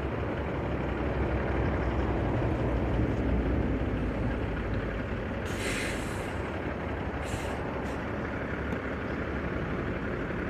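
Semi truck's diesel engine running steadily at low revs while maneuvering, with two short bursts of air-brake hiss, the first about five and a half seconds in and a shorter one just after seven seconds.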